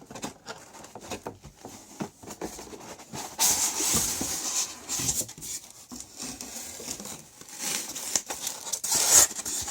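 Packaging being unwrapped and handled around stoneware dishes: crinkling and rustling with scattered light knocks. The rustling is loudest in a burst about three and a half seconds in and again near the end.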